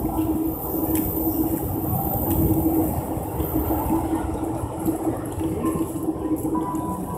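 Busy city street ambience: a steady low rumble with a steady hum running through it.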